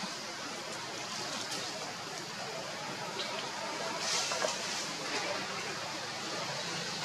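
Steady outdoor background hiss, with a brief brighter rustle about four seconds in.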